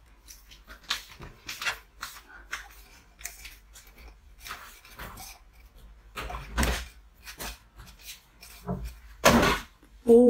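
Handling sounds of ice cream cones being dipped into a jar of chocolate sauce: scattered small clicks and rustles, with two louder noisy swishes about six and nine seconds in.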